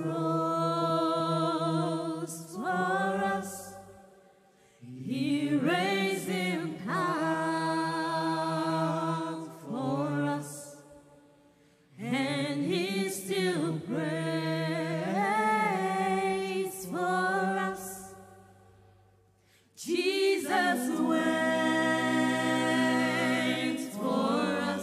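A choir of men and women singing a slow gospel song into microphones. They sing four long phrases, with a short pause for breath between each.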